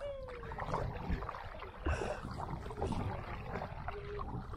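Small splashes and knocks of a kayak moving on a river, with water lapping at the hull.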